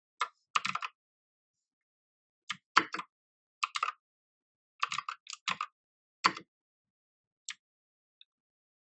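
Keys of a mechanical keyboard being pressed in short clusters of clicks, a few at a time with pauses of a second or so between: Fn-key combinations being tried out.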